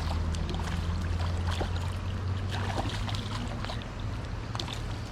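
Small creek water running under a steady low hum, with light scattered clicks and small splashes as a little smallmouth bass is reeled in and landed.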